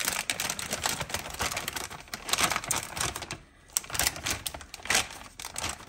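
Plastic vacuum-sealer bag crinkling as hands fold and smooth its top, in quick irregular crackles with a brief lull about three and a half seconds in.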